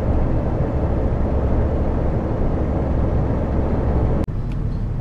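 Steady low drone inside a lorry cab at motorway speed: the truck's engine and tyre noise. About four seconds in it breaks off with a sharp click and a quieter drone follows.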